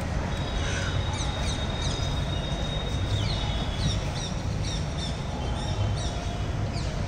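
Many small birds chirping in quick, short, high calls, scattered throughout, over a steady low rumble of background noise. A thin, steady high whistle runs through the first half.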